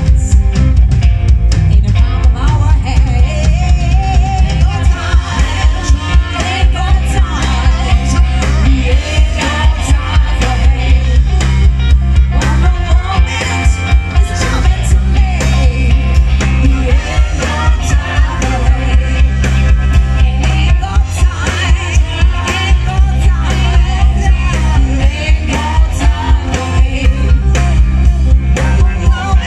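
Live band playing a rock song with a steady beat: a woman sings lead over drums, electric bass and guitar.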